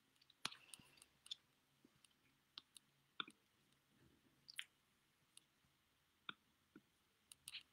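Near silence: room tone broken by a dozen or so faint, sharp clicks at irregular intervals.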